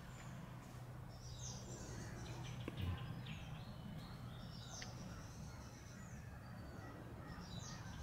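Small birds chirping on and off, short high calls that slide downward, over a low steady hum, with a single sharp knock about three seconds in.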